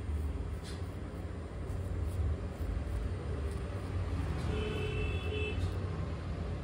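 Razor scraping through beard stubble over a steady low rumble like road traffic, with a short steady tone about a second long, about four and a half seconds in.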